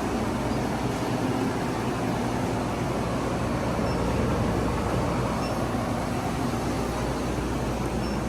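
XLerator high-speed hand dryer running with a steady, loud rush of air.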